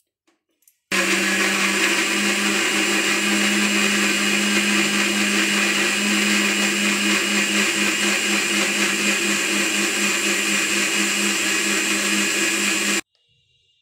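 Electric mixer grinder (mixie) blending milk and chopped apple into a milkshake, its motor running loud and steady. It starts abruptly about a second in and cuts off abruptly near the end.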